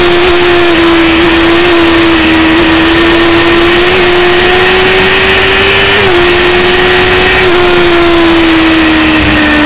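Suzuki GSX-R750 inline-four sportbike engine running at steady high revs under way, with heavy wind rush over the microphone. The engine note dips slightly about six seconds in and eases gently lower near the end.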